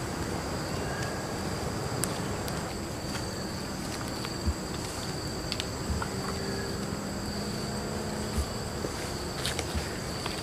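Steady drone of jungle insects, held on two high pitches, with a few faint scattered clicks.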